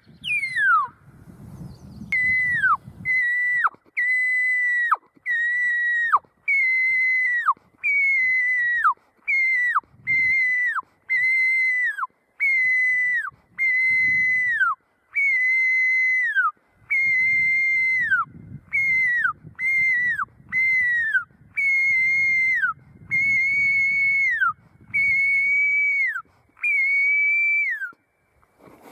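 Hand-blown predator call giving a long run of high, crying notes, about one a second, each held briefly then falling off in pitch at its end, blown to draw in a black bear.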